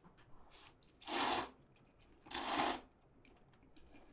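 Two short, airy mouth sounds, each about half a second long and a little over a second apart, from a person starting to eat a bowl of hot instant noodles.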